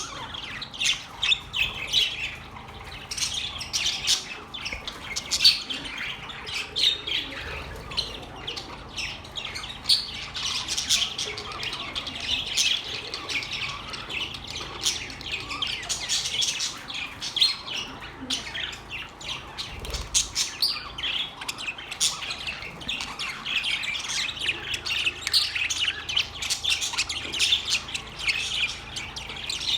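A group of birds, parrots among them, chirping and squawking continuously in dense, overlapping short calls.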